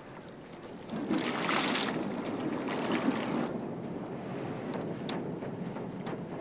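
Water splashing as a man bathes in a river: a loud splash about a second in, then steady sloshing with a few small splashes.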